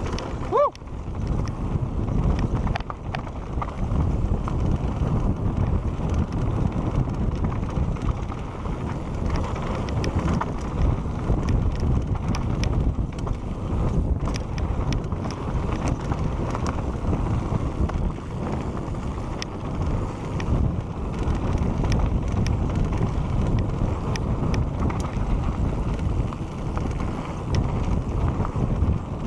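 Santa Cruz Bronson mountain bike descending dirt singletrack at speed: a steady rush of wind buffeting the camera microphone over the tyres rolling on dirt, with the bike's chain and frame rattling in scattered small clicks.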